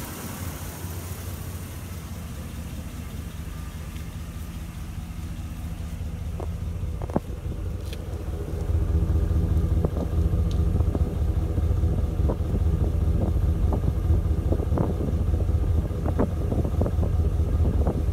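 A 2012 van's engine running at a steady idle, heard first at the open engine bay, then louder at the exhaust tailpipe from about eight and a half seconds in.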